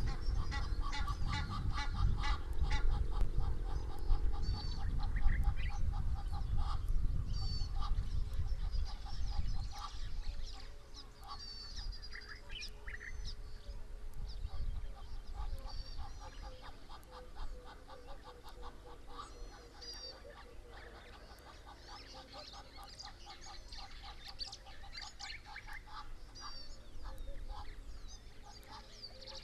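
Wild birds calling: a loud run of rapid repeated call notes over a low rumble for roughly the first ten seconds, then fainter high chirps and short whistles from several birds.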